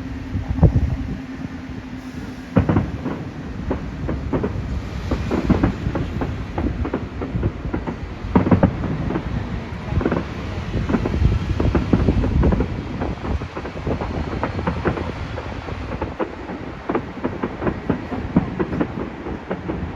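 Fireworks going off in a continuous barrage: many sharp bangs and crackles in quick, irregular succession, mixed with deep booms.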